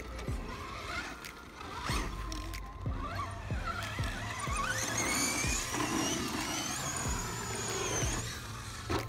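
Electric motor of a 1/10-scale Pro-Line Pro-MT 4x4 RC monster truck whining as it drives over dirt jumps, its pitch rising and falling with the throttle, with a few short knocks along the way.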